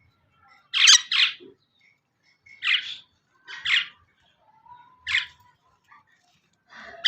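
A bird giving short harsh calls: two in quick succession about a second in, then single calls roughly every second, with the last one near the end.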